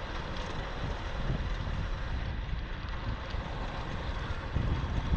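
Wind buffeting the microphone of a handlebar-mounted camera on a moving Flying Pigeon roadster bicycle, over a low rumble from the tyres and frame rolling on the paved road. It grows a little louder near the end.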